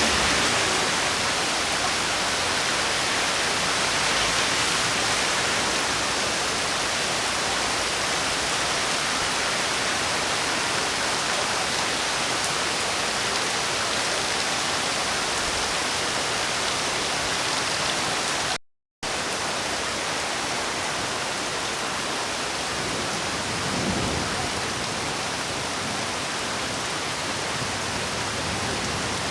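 Steady heavy rain, a dense even hiss, with the sound cutting out completely for a split second about two-thirds of the way through.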